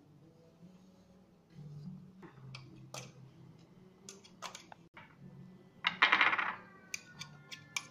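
A metal spoon clinking and scraping inside a stainless steel mixer-grinder jar, scooping out ground sesame paste. Short sharp clinks come throughout, with a louder scrape about six seconds in followed by a ringing clink.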